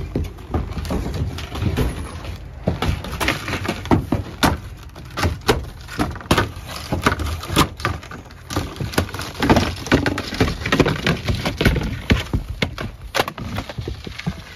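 Ski boots and skis knocking, clunking and scraping on a snow-covered wooden deck as a skier steps into his bindings and slides along the boards: a run of irregular sharp knocks with scraping between them.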